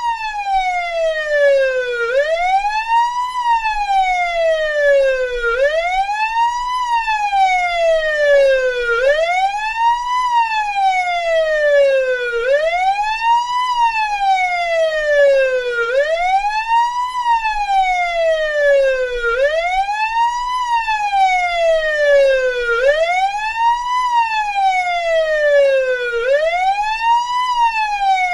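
Russian police car siren in its wail tone: the pitch rises quickly in about a second, then falls more slowly, repeating about every three and a half seconds.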